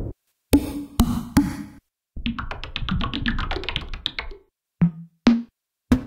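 u-he Diva software synthesizer playing short percussive, drum-like synth patches: three slap-like hits with a low pitched tone, then a quick run of clicky pitched notes lasting about two seconds, then a few short separate notes.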